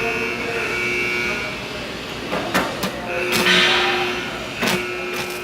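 Steel fabrication work: a steady whine with a loud hissing burst partway through and a few sharp knocks.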